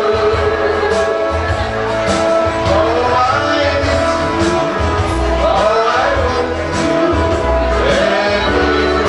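Music with a singing voice over held instrumental tones and a pulsing bass.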